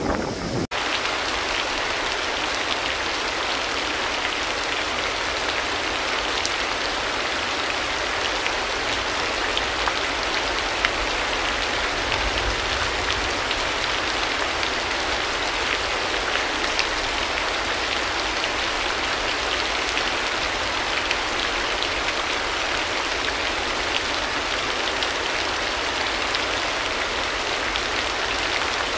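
Steady rain: an even hiss with scattered small drop ticks. It starts abruptly under a second in, cutting off a short burst of wind on the microphone.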